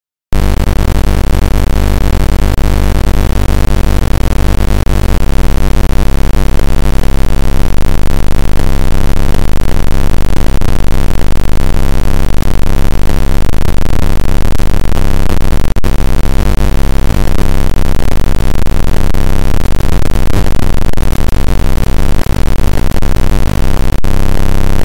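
Loud, harsh static-like noise with a heavy low hum. It is the output of the speaker in a simulated ATmega128 circuit, played through the computer's audio. It starts abruptly as the simulation starts, turns into a steadier buzz with distinct tones near the end, and then cuts off suddenly.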